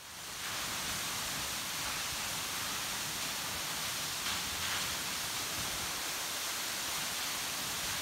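Waterfall pouring into a rock pool, a steady, even rushing of water that fades in at the very start.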